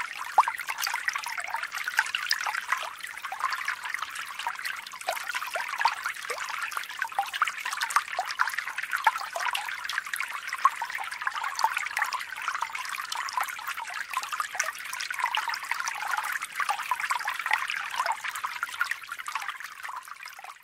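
Steady trickling, bubbling water with many small crackles, fading out near the end.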